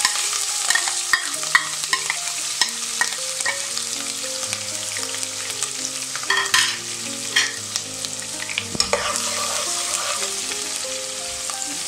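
Chopped green chillies hitting hot oil and cumin seeds, frying with a steady hard sizzle and scattered sharp crackles and clicks. Near the end a metal spatula stirs them in the nonstick pot.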